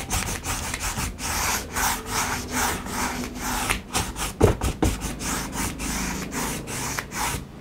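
Flat nylon paintbrush scrubbing acrylic paint back and forth on stretched canvas, blending the wet paint: a rhythmic rasping of about three strokes a second that stops near the end.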